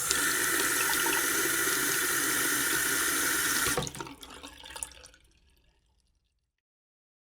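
Water running from a faucet into a sink, steady and loud for about four seconds, then stopping suddenly, followed by a few dribbles and drips that fade out.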